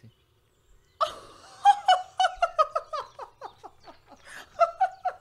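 High-pitched laughter: a rapid run of short, falling notes that starts about a second in, with a second burst near the end.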